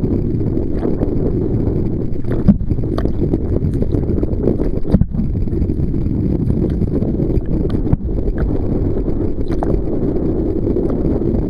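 Wind buffeting the microphone: a steady, rough low rumble, broken by a few sharp knocks about two and a half, five and eight seconds in.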